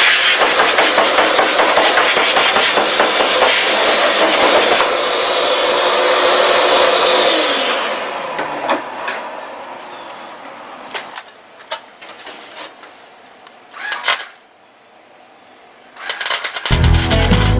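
Angle grinder running hard against the steel frame rail, then let off about seven seconds in and winding down with a falling whine. After that come a few light clicks and a knock, and near the end background music starts.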